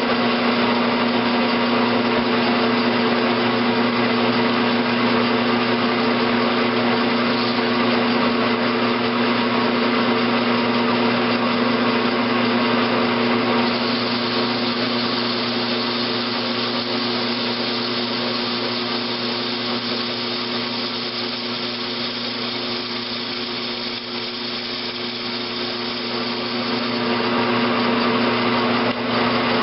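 Grizzly G9972Z bench metal lathe with gearbox switching on and running steadily, a hum with a steady whine, as an upside-down tool bit cuts the 45-degree face of an engine valve.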